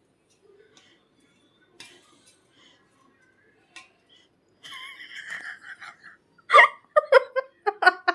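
Pet parrot calling: faint clicks at first, then a drawn-out chattering call about four and a half seconds in, followed by a run of short, loud squawks about three a second.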